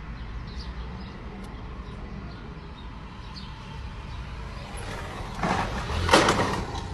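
Low, steady rumble of a car idling, heard from inside the cabin. About five and a half seconds in, a louder, brief noisy sound rises over it for about a second.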